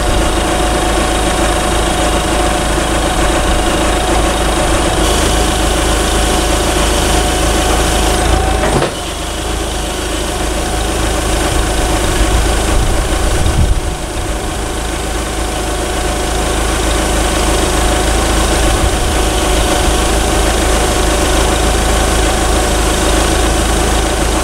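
Yale forklift engine running steadily while it hoists a semi's charge air cooler out on a strap. The level drops for a few seconds about nine seconds in, then comes back up.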